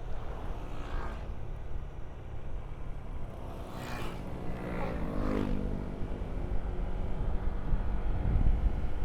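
Motorcycle engine running under way with wind and road rumble; the engine note drops in pitch about four to five seconds in, and the rumble grows louder near the end.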